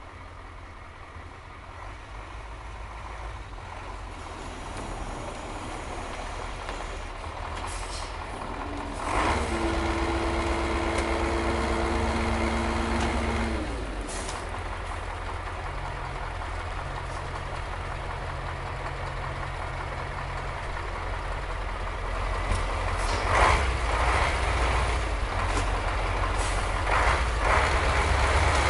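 Garbage truck's diesel engine running, rising to a louder, strained pitch with a steady whine for about four seconds as the truck works its compactor. Short air hisses come before and after that stretch, and bangs and clatters follow near the end.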